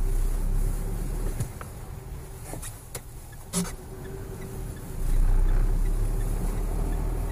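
Car engine and tyre noise heard from inside the cabin while driving, a steady low rumble that grows louder about five seconds in. A couple of short clicks sound near the middle.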